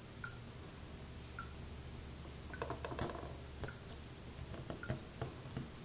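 Faint scattered clicks and taps of small objects being handled, with two brief squeaks in the first second and a half, over a low steady hum.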